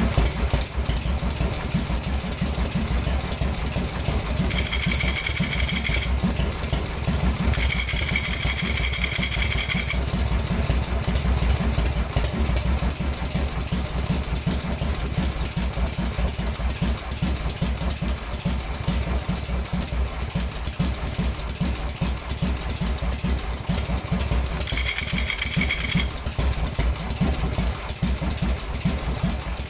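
Rat rod motorcycle engine idling with a fast, even low beat, its clutch making noise. Three times a high, steady whine comes in for one to two seconds and then stops.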